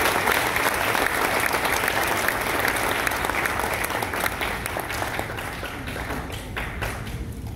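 Audience applauding, fading gradually to a few scattered claps near the end.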